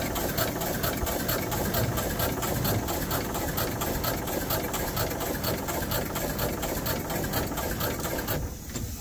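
Steam engine of a small steam launch running, a fast even mechanical beat that stops about half a second before the end.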